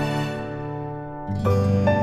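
Background instrumental music: held, gentle notes that fade, then a new phrase with a low bass comes in about one and a half seconds in.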